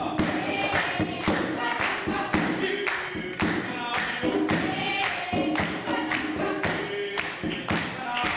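A group of voices singing together over a steady beat of sharp strikes, about two a second.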